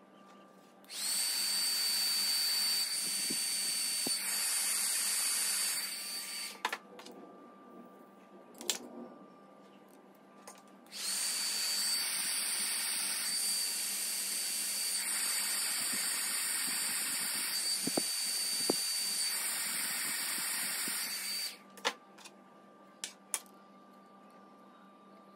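Handheld heat gun blowing, run twice for several seconds each: airflow hiss with a high steady whine from its fan. It is shrinking heat-shrink tubing over the high-voltage wire joint at the CO2 laser tube's electrode. A few small clicks fall between and after the runs.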